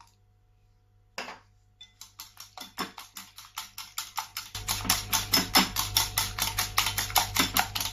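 Eggs, milk, pepper and salt being beaten in a bowl, a utensil clicking against the bowl in fast, even strokes. The strokes start about two seconds in and speed up to around six a second.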